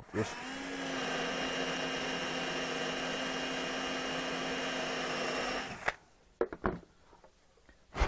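Cordless drill spinning a 1/2-inch Forstner bit through a dry-erase board, running steadily for about five and a half seconds and then stopping. A few light knocks follow.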